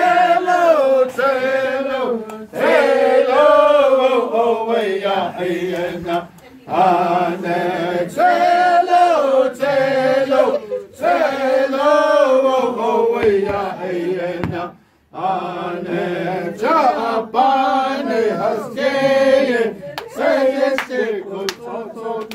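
A group of voices chanting a Diné (Navajo) shoe game song together, in repeated sung phrases with two brief breath pauses.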